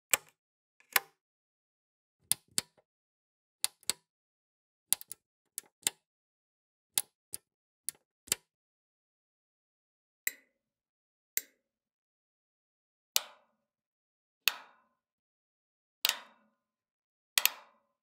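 Rocker on/off buttons and thermostat of an oil-filled convector heater clicking: single sharp plastic clicks about one to two seconds apart, some in quick pairs. The last four are fuller clicks, each with a short ring.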